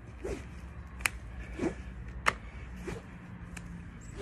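A short rope swung around the torso in a rhythmic twisting warm-up, slapping against the body about every second and a quarter, with softer, duller swishes in between.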